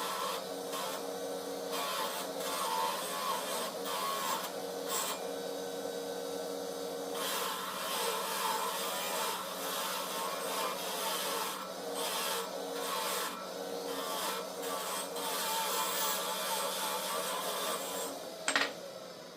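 Repeated scraping and rubbing strokes of hand work on a starter part, over a steady hum, with a single sharp click near the end.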